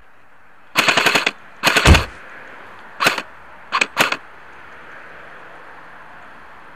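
Electric airsoft rifle (Specna Arms SA-A08 AEG) firing five short bursts of rapid shots, loud and close, starting just under a second in and ending around four seconds in; the second burst carries a heavy thud.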